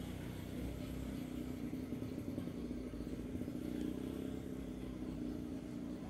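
A steady low engine drone, running without clear changes in pitch.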